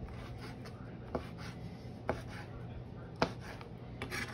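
Chef's knife chopping chipotle peppers in adobo on a plastic cutting board: soft chopping strokes with three sharper knocks of the blade on the board about a second apart.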